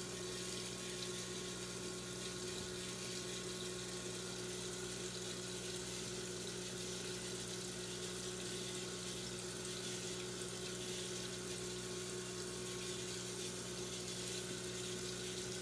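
Steady background room tone: a constant low hum with an even hiss over it, unchanging throughout.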